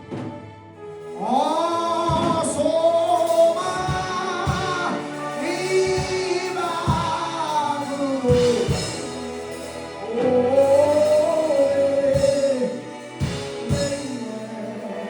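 Gospel singing with instrumental backing: voices hold long notes that slide up and down, starting about a second in.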